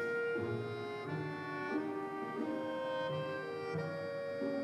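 Background instrumental music: a slow melody of held notes that change pitch every half-second or so.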